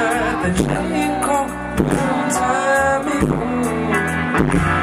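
Live band playing a slow pop song: a man singing lead over electric guitar and bass guitar, with a steady beat.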